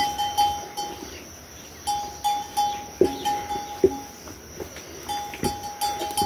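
Livestock neck bell clanking in short runs of strikes, about three a second, with pauses between runs as the animal moves. A few dull knocks sound now and then under the bell.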